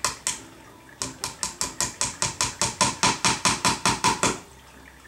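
Hammer tapping a thin finishing nail through sisal rope into a wooden post. Two taps come first, then a quick run of about twenty taps at roughly six a second, which stops a little over four seconds in.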